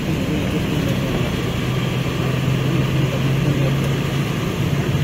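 Bus engine and road noise droning steadily inside the cabin as the bus drives.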